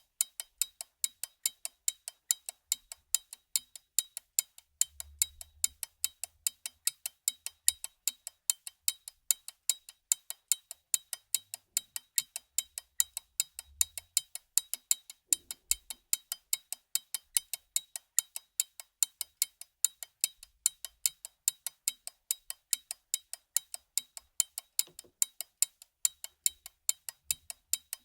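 Mechanical pocket watch ticking in close-up: a steady, rapid run of sharp, even ticks, several a second.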